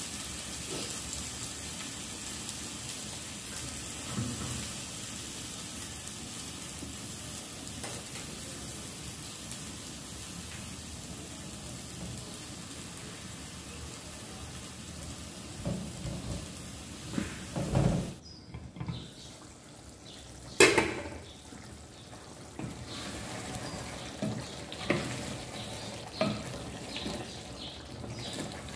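Food sizzling in a hot pan, a steady frying hiss that cuts off suddenly about eighteen seconds in. After that come scattered clanks and knocks of pots and utensils, the loudest about twenty-one seconds in.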